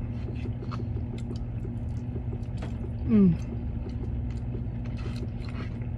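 A woman eating macaroni and cheese with a plastic fork from a paper cup: soft clicks of the fork and chewing, with one short falling "mmm" of enjoyment about three seconds in. Underneath is the steady low hum of the car she sits in.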